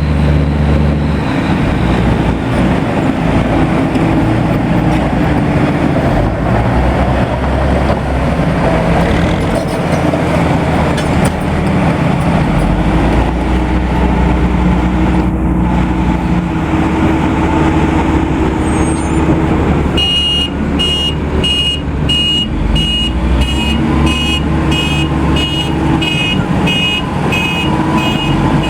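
Large off-highway mining dump truck's diesel engine running steadily. About two-thirds of the way in, a reversing alarm starts beeping repeatedly, about one and a half beeps a second, as the truck backs up.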